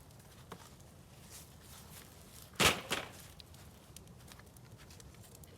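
Pallet-wood fire crackling with scattered small pops, and one loud crack about two and a half seconds in, followed closely by a smaller one.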